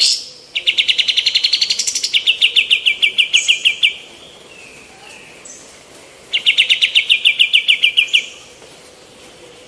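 A female kapas tembak, a bulbul, singing in fast rattling trills of evenly repeated notes. There are two bouts: a long one of about three and a half seconds, then a shorter one of about two seconds.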